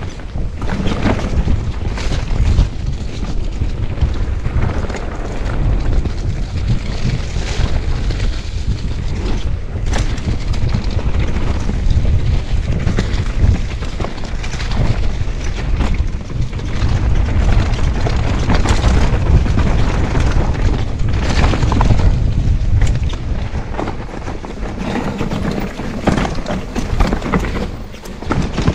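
Mountain bike riding fast down a rough dirt trail: a heavy low rumble of wind buffeting the microphone, with the bike clattering and knocking over bumps.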